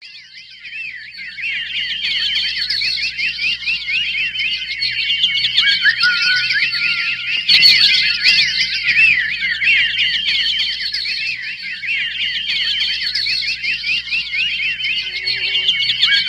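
A dense chorus of high, rapid bird-like chirps and warbling whistles, many overlapping, fading in from silence over the first second or two.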